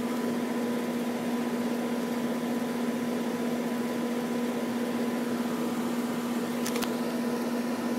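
Ruud outdoor condensing unit running: a steady hum under the even rush of its top fan. Two faint ticks come near the end.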